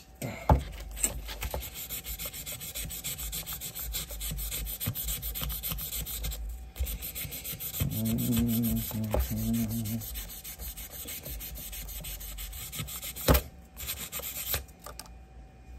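Hand sanding of a pocket knife's corroded brass with oil-wetted 3000-grit sandpaper: quick back-and-forth scratchy rubbing strokes, pausing briefly twice, with a couple of sharp taps.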